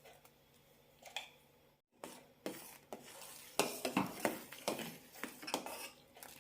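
A metal spoon knocking and scraping against a cooking pan, in a string of separate clinks and scrapes that starts about two seconds in.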